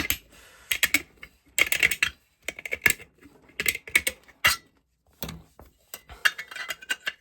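Thin metal of a soup can being cut and bent to widen a hole: clusters of sharp metallic clicks and crinkles, roughly one cluster a second.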